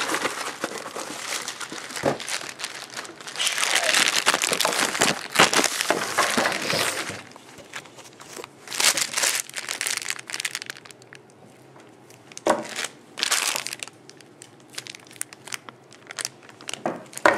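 Clear plastic bag crinkling in bursts as a skateboard truck is unwrapped from it, with a few sharp knocks between the bursts.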